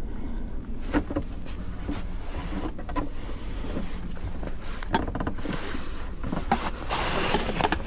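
Scattered clicks and knocks of a part being worked by hand into place on an outboard motor's cowling, with a quick run of small ticks about five seconds in and a rustling scrape near the end, over a low steady hum.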